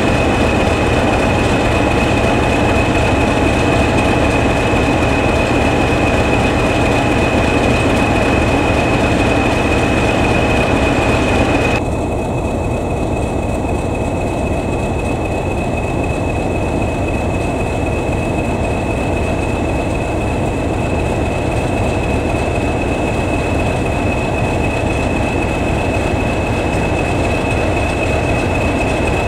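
English Electric Class 40 diesel locomotive's 16-cylinder engine running while the locomotive stands, its turbochargers giving the steady high whistle that earned the class the name "Whistlers", over a low engine rumble. About twelve seconds in, the hiss in the upper sounds drops away while the whistle and rumble carry on.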